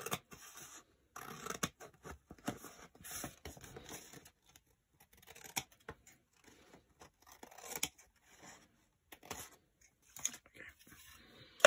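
Scissors cutting paper: a run of short, irregular snips as a thin strip is trimmed off the edge of a sheet.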